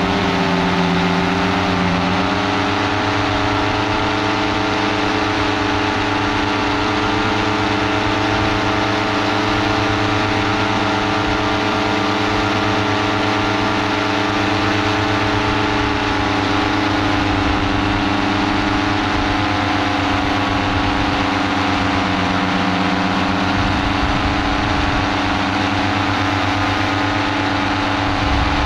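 Paramotor engine and propeller running steadily in powered flight, a constant droning note whose pitch shifts slightly about two seconds in.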